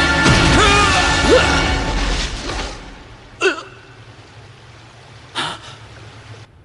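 Dramatic cartoon soundtrack music with sliding, pitch-bending effects, fading out about three seconds in. Two short, sudden swishing sounds follow, about two seconds apart.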